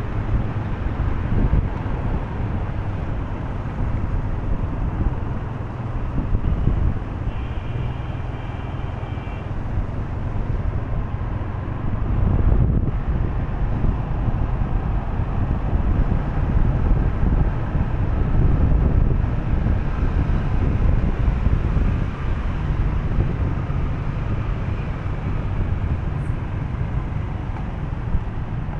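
Wind rumbling on the microphone with road and traffic noise from a moving vehicle, a steady low noise without pauses.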